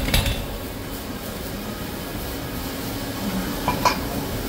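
Steel parts of a pipe-welding turning stand clanking as a rotating insert is picked up and handled: a ringing clank at the start, then two sharp metallic clinks about a second before the end, over a steady low hum.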